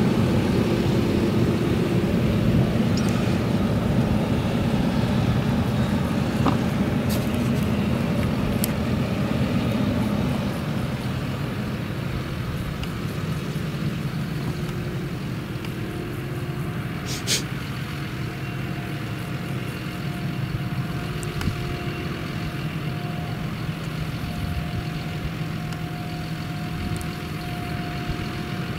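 Claas Jaguar 970 forage harvester's MAN V8 engine running steadily under load while it chops sorghum, heard from a distance as a continuous low drone that grows somewhat quieter about ten seconds in. A single sharp click sounds past the middle.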